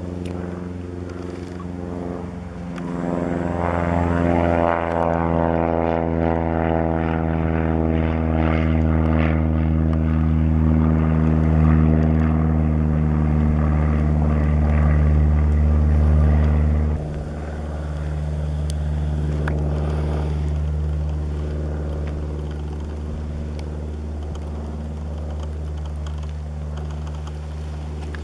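Small single-engine propeller bush plane flying past, a steady engine-and-propeller drone. It swells as the plane approaches, drops abruptly about 17 seconds in and then slowly fades.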